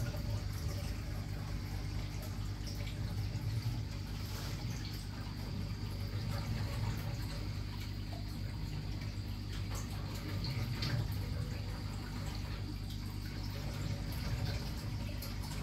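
Aquarium water circulation running: a steady trickle and splash of moving water over an even, low hum.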